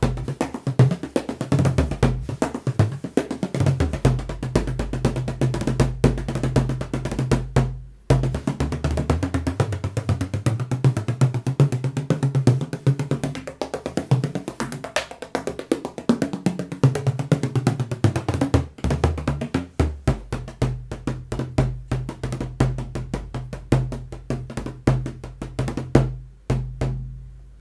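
18-inch Malachy Kearns tunable bodhrán played with a tipper in a fast, dense stream of strokes, its low drum note ringing under the strikes and shifting in pitch. The playing breaks off briefly about eight seconds in and stops near the end.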